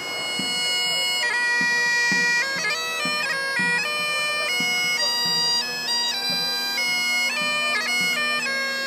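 Great Highland bagpipes playing a tune: the melody steps from note to note over a steady, unbroken drone.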